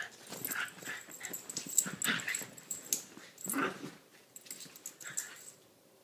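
Two small dogs, a Chiweenie and a Rat Terrier–Chihuahua mix, play-fighting: a quick string of short dog noises mixed with scuffling on bedding, dying down near the end.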